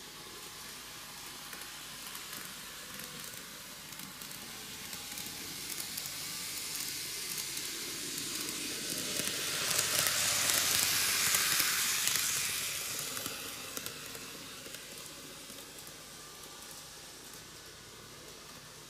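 N-gauge model train, a Microace Meitetsu KiHa 8000 series six-car set, running past on TOMIX superelevated track: a hissing rattle of wheels on rails and motor that builds over several seconds, is loudest a little past the middle as the cars go by, and fades away.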